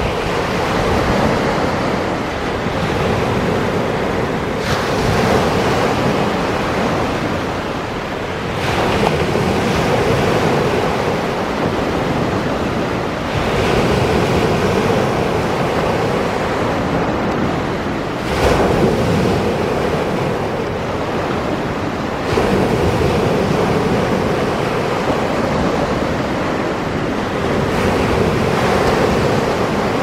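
Small sea waves breaking on the shore and washing up in foam, a fresh wave crashing in every four to five seconds over a steady rush of surf.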